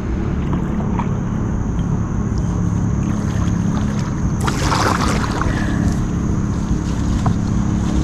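Small boat's motor running steadily as the boat moves along the river, with a short rush of noise about four and a half seconds in.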